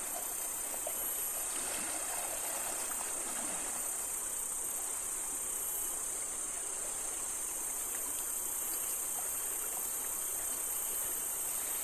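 River water running with a steady rush, under a constant high-pitched insect drone.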